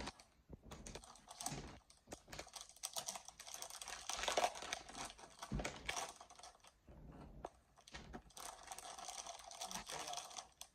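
Clear plastic packaging bag crinkling and rustling as it is handled and opened, with many irregular small crackles and clicks.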